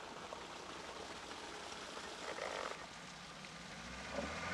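Steady outdoor hiss; about four seconds in, a UAZ-469's engine comes in, running low and steady.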